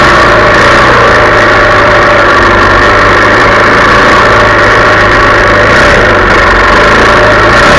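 Yamaha 400 dirt bike engine running loud and close at a steady, nearly unchanging speed while riding.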